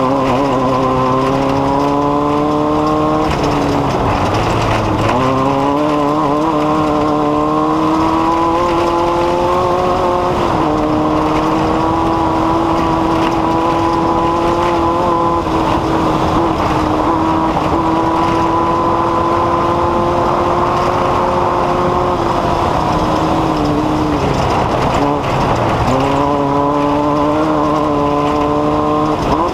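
An engine running steadily at speed, its pitch dipping briefly about four seconds in and again near the end before climbing back.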